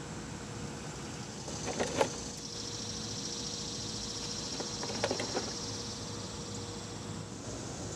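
Plastic tool case of an OTC 4530 power steering pump pulley set being opened and its heavy steel puller pieces handled: a sharp click about two seconds in, then a few knocks and clinks around five seconds as a forcing screw is lifted out. A steady high buzz runs in the background.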